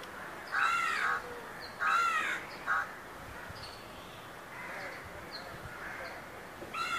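Crow cawing: two harsh caws about a second apart and a short third one, with another caw starting near the end.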